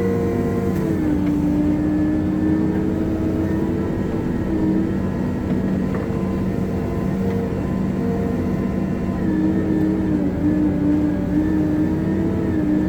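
Hitachi 370 wheel loader's diesel engine running steadily under work. One tone in the machine's sound drops in pitch about a second in and shifts up and down later on.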